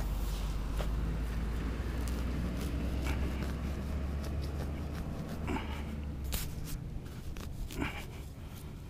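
Scattered knocks, scrapes and rustles from a metal detectorist handling his gear as he kneels on grass, over a low rumble that cuts out about six seconds in.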